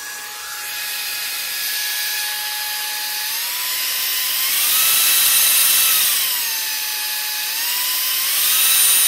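Halostar cordless stick vacuum's motor unit running with no attachment, a loud, steady whine. It steps up in pitch twice as it is switched through its power levels (regular, mega, super ultra), drops back to the lowest setting, then jumps straight up again near the end.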